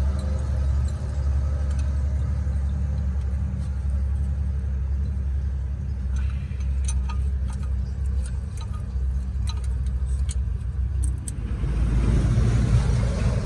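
Light metal clicks of a spanner and feeler gauge on the rocker arms and adjusting screws of a diesel cylinder head, as valve clearances are set, over a steady low hum. Near the end a louder rustling clatter comes in as the rocker cover is handled.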